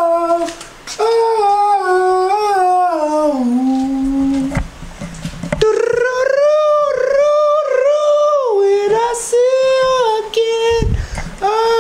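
A man singing long, drawn-out notes without clear words in a fairly high voice, sliding up and down between pitches, with a few short breaks.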